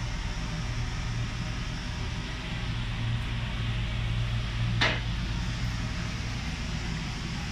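Steady mechanical hum with an even hiss of moving air, like a running fan or machine, and a single sharp click about five seconds in.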